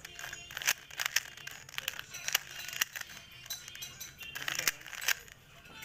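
Plastic 3x3 Rubik's cube being turned fast: a quick, irregular run of clicks and clacks, several a second, as the layers snap round.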